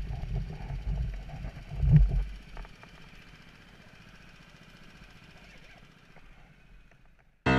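Go-kart engines running with a low, uneven rumble and some knocks of handling noise on the camera for the first two seconds or so. It then drops to a faint hiss. Piano music cuts in right at the end.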